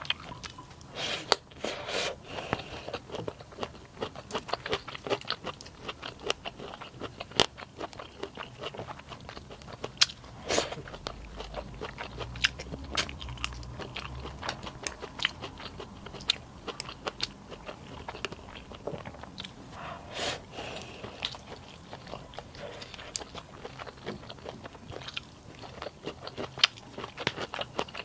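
A person eating close to the microphone: chewing and biting food, with many irregular crisp clicks and smacks.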